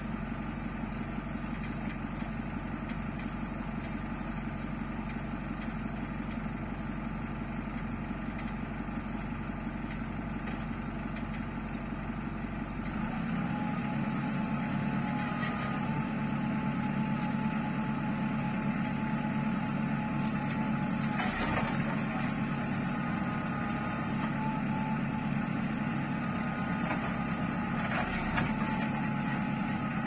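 JCB 3DX backhoe loader's diesel engine running steadily. About halfway through it gets louder and changes note as the boom is worked, and a steady whine sits over it. Two sharp knocks come in the later part.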